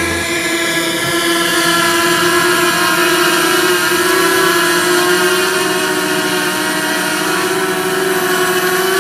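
DJI Mavic Mini quadcopter's propellers and motors whining steadily in flight, the pitch shifting slightly as it manoeuvres.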